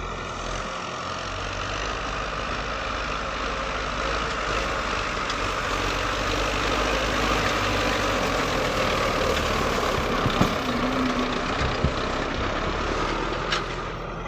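Tractor engine running steadily in the field, growing slightly louder, with a few short knocks near the end.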